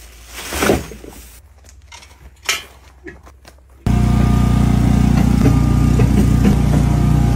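A few faint knocks, then about four seconds in a loud, steady machine drone comes in abruptly: a low engine-like hum with a few steady higher tones over it, from machinery running on a home-built plastic-to-fuel pyrolysis rig.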